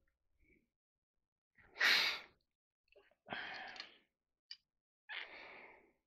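A man's breathing: three heavy exhales, about one and a half seconds apart, the first the loudest, with a faint small click between the second and third.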